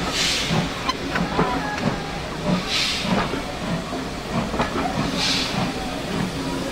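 Steam locomotive hissing, with a rush of steam about every two and a half seconds over a steady background of metallic clanks and squeaks.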